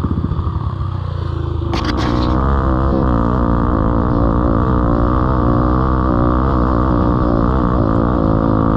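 Yamaha TT-R single-cylinder four-stroke dirt bike engine chugging at low revs, then picking up after a couple of sharp clicks about two seconds in and running at a steady, higher speed as the bike rides along.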